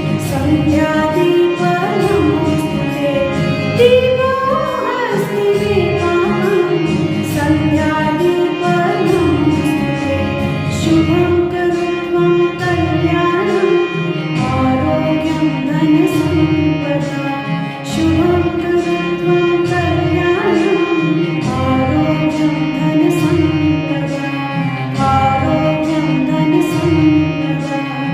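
Indian devotional music in a classical style: a sung melody with gliding, ornamented notes over plucked-string accompaniment.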